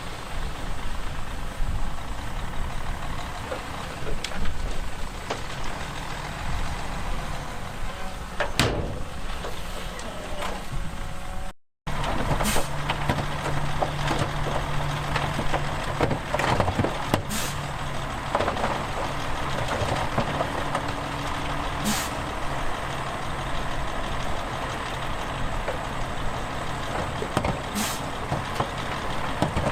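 Heavy diesel earthmoving machinery running: bulldozer and dump truck engines working, with a few short sharp sounds over them. The sound cuts out briefly about twelve seconds in, then comes back with a steady low engine drone.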